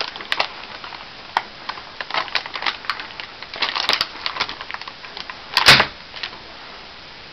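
Wavy crinkle-cutter blade pressed through a loaf of cold-process soap: a run of small sharp clicks and cracks as it cuts, with one louder knock about five and a half seconds in.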